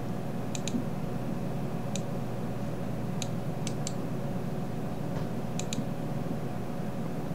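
Computer mouse button clicks, about eight in all, some in quick pairs, over a steady low electrical hum.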